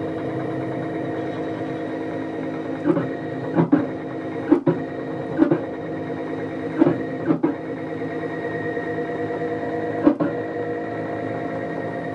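Stepper motors of a home-built CNC router driving the gantry along its Y-axis lead screws at a feed of 1680 mm/min: a steady whine of several tones, with short louder bursts and sharp clicks every second or so from about three seconds in.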